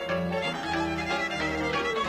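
Violin playing a lăutărească folk melody in short, quick notes, over a band's low bass notes that change about twice a second.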